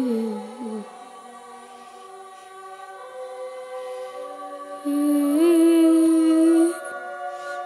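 Slow music of long held notes with wordless singing, played through a television's speaker. A louder sung note comes in about five seconds in and holds for nearly two seconds.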